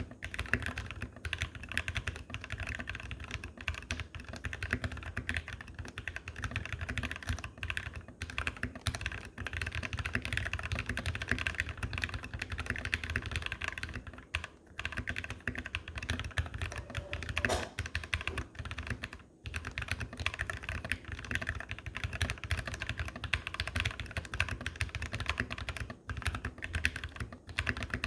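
Steady fast typing on an RK61 mechanical keyboard with lubed RK Red linear switches, doubleshot PBT keycaps and a foamed case: a dense run of keystrokes with two brief pauses around the middle.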